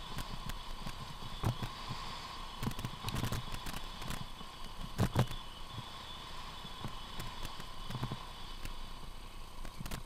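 Mountain bike rolling fast down a rough dirt track, knocking and rattling irregularly as it jolts over bumps and stones, with a few sharper knocks.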